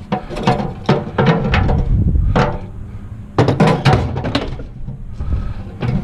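Handling clatter of power-tool parts and accessories: an irregular run of knocks and clicks as pieces are handled and fitted into place.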